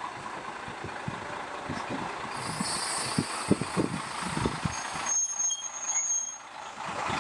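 CR70 diesel railcar running as it rolls slowly along the station track. Irregular low knocks come from the wheels on the rails, a hiss of air sounds about two seconds in, and a thin, high steady squeal lasts about a second near the end.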